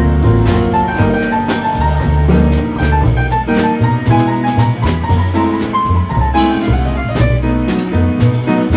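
Jazz played by a small band: piano and drum kit over changing bass notes, with a melody line moving in short notes.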